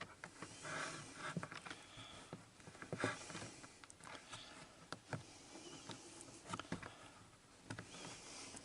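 Close handling of a wire and socket fitting: scattered light clicks, taps and rustles of small plastic and metal parts.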